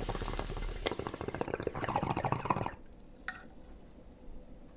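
Water in a glass bong bubbling rapidly as smoke is drawn through it, stopping abruptly about two and a half seconds in. A short faint noise follows a moment later.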